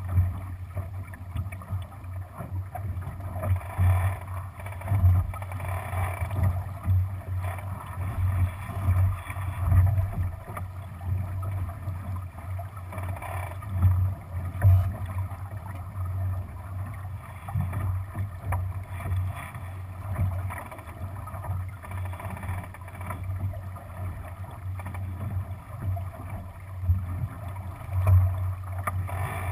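Water rushing along the hull of a Lightning sailboat running under spinnaker, under an uneven low rumble of wind buffeting the camera's microphone.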